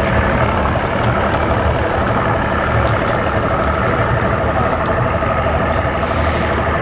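Boat outboard motor running steadily at low speed.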